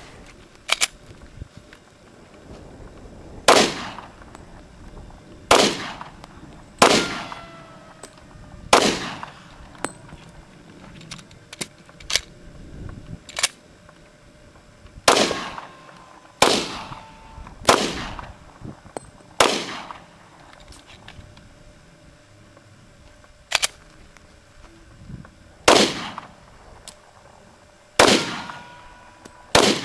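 A Glock 23 .40 S&W pistol firing about a dozen single shots, spaced one to two seconds apart, with a longer pause about a third of the way in. Fainter clicks come during the pause.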